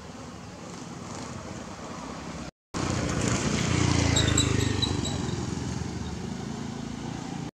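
A motor vehicle's engine running, swelling to its loudest about four seconds in and then easing off, with a few short high chirps around the same time.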